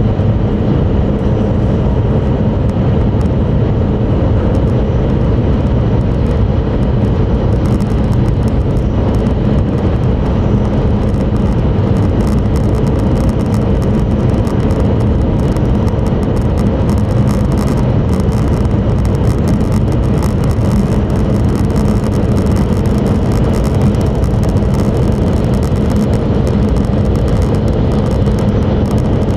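Steady running noise heard inside the passenger cabin of an E5 series Shinkansen travelling along the line: a loud, even rumble of wheels and rushing air, with a faint steady hum underneath.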